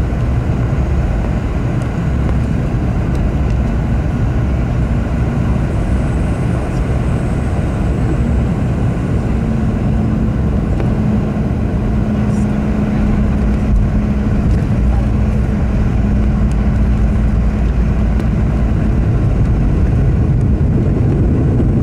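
Cabin noise of a Boeing 717 with Rolls-Royce BR715 engines, landing: a steady roar of engines and rushing air through the touchdown and the rollout on the runway. It grows a little louder near the end as reverse thrust is engaged.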